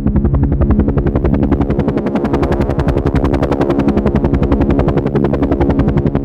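Helicopter flying: the rotor blades make a rapid, even chop over a steady engine hum.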